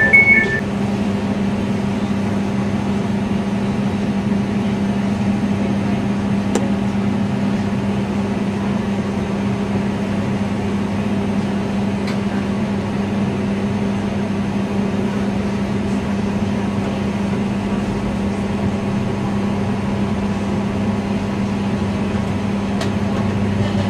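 Steady electrical hum and running noise inside a Class 345 electric train, with the train's drone unchanging throughout. The last door warning beeps stop about half a second in.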